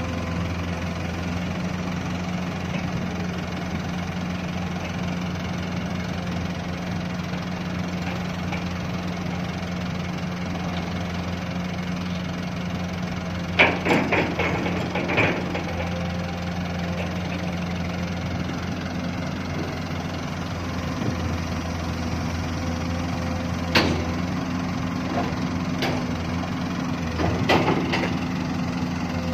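Heavy diesel engines of an excavator and dump truck running steadily. About halfway through comes a quick run of knocks as a bucketload of dirt and rock drops into the truck's steel bed, and a few more single knocks near the end.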